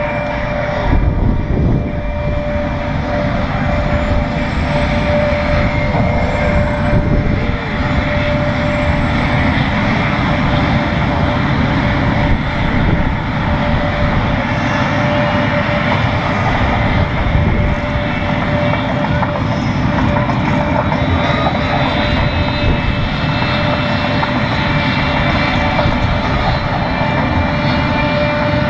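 Several USAF Thunderbirds F-16 jet engines running on the ramp during start-up: a loud, steady turbine noise with a high whine that rises in pitch over the first several seconds and then holds steady, over a constant mid-pitched tone.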